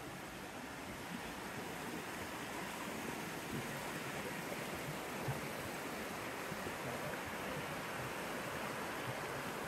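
Rocky mountain stream rushing over boulders and rapids: a steady, even wash of running water.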